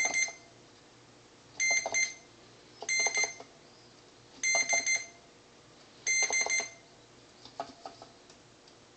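Multimeter continuity beeper sounding in five short beeps at a steady high pitch, about a second and a half apart, each as a key of the Moog MG-1 keybed closes its contact. Each beep means that key's contact is working. A few faint clicks follow near the end.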